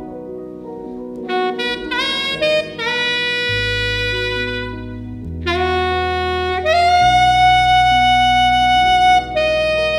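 Saxophone improvising a jazzy melody over a recorded accompaniment of bass and chords: short notes that scoop up into pitch from about a second in, then a long held note near the end.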